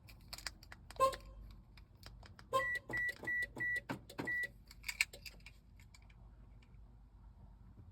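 2007 Mazda 3's electronic warning chime beeping: a short low beep about a second in, then a run of five short, evenly spaced high beeps, with light clicks around them.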